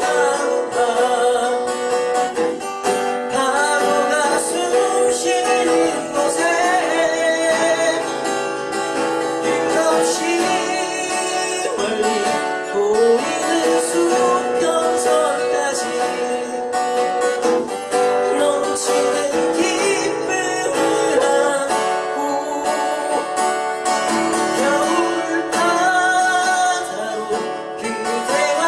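Live acoustic guitar music with a voice singing a ballad over it.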